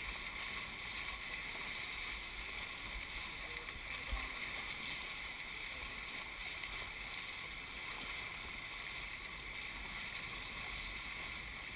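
Hobie 21SE catamaran's hull rushing through choppy water under sail: a steady hiss of wash and spray.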